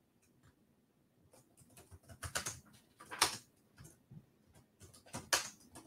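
Computer keyboard typing: short irregular clusters of key clicks, about two seconds in and again near the end.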